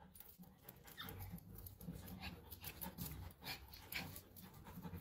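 Faint scuffling and short scrapes of two dogs play-fighting on concrete, irregular and light, over a low steady hum.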